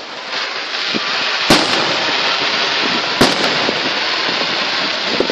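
Fireworks going off: two loud bangs about a second and a half apart, the second followed by a couple of quick cracks, over a steady crackling hiss.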